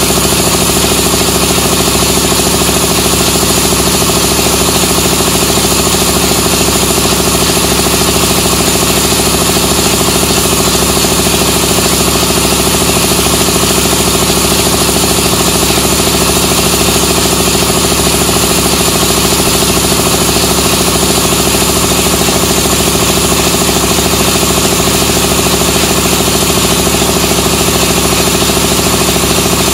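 Gihon portable electric air compressor, 2.2 kW, running steadily and loudly, at about 93 dB on a sound level meter held close to it.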